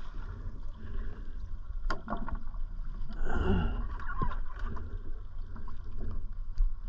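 Water sloshing against the hull of a drifting boat, with wind on the microphone and a few sharp knocks as freediving fins and dive gear are handled on deck; a louder scuffle comes about three seconds in.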